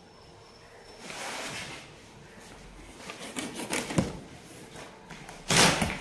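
Cardboard washing-machine carton being opened by hand: scraping and rustling of the flaps, a sharp knock about four seconds in, and a short, loud burst of scraping or tearing near the end.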